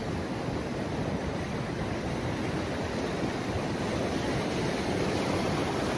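Steady wash of sea surf, with wind buffeting the microphone.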